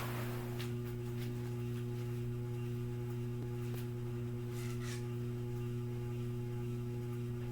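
Steady electric motor hum from a fan, a low tone with a couple of higher overtones holding constant pitch. A short rush of noise right at the start and a few faint clicks.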